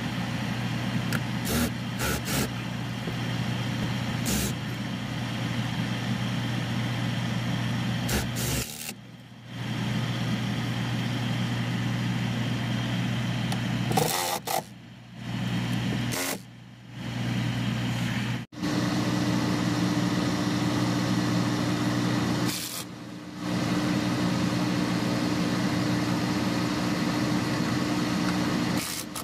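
A cordless drill-driver running in several short bursts, driving screws, over a steady low engine-like hum whose pitch steps up about two-thirds of the way through.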